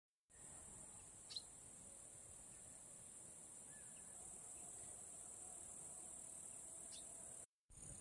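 Insects in summer grass making a steady, faint high-pitched chirring, with two short high chirps, one about a second in and one near the end. The sound cuts out briefly just before the end.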